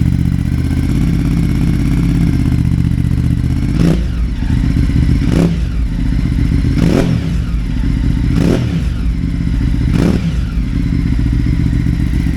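Ducati Multistrada 950's 937 cc L-twin running through its stock exhaust with a decat pipe: it idles steadily, then about four seconds in is blipped five times, one short rev about every one and a half seconds, each rising and falling back to idle.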